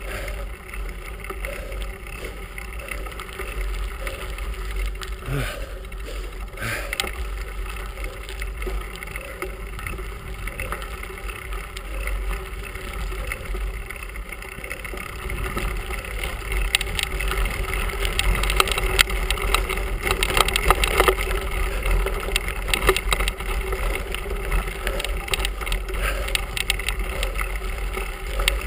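Bicycle rolling over a gravel carriage road, heard from a handlebar-mounted camera: a steady rumble of wind and vibration on the microphone, with the rattle of the tyres on the loose surface growing louder about halfway through.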